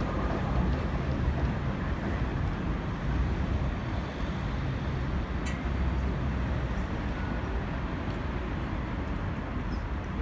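Steady low rumble of city street traffic with a long low-floor tram rolling past on its track.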